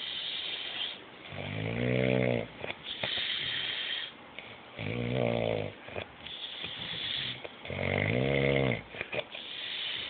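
A sleeping man snoring heavily: three loud, buzzing snores about three seconds apart, with a hissing breath between each.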